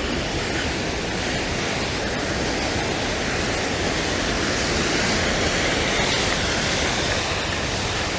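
Steady rushing of water, an even noise from low to high pitch that swells slightly midway and then eases.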